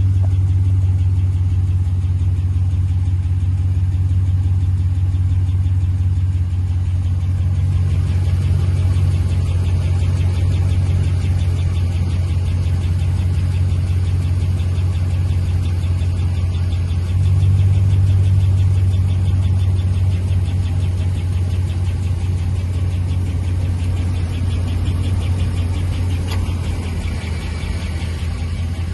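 5.7 HEMI V8 engine idling steadily with a fast, light ticking over the engine note; the idle swells briefly a little past halfway.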